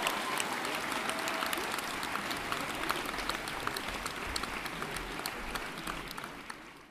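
Audience applauding, dense clapping that slowly dies down.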